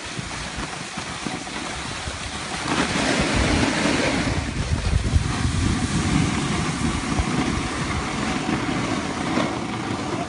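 Skis gliding and scraping over packed snow as a steady rush, with wind rumbling on the microphone. It grows louder about two and a half seconds in.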